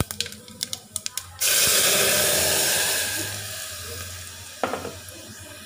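Tempering in hot oil in a pressure cooker crackles and pops. About a second and a half in, a sudden loud sizzling hiss starts as the cooked dal-and-tomato water is poured into the hot oil, then slowly dies down over a few seconds.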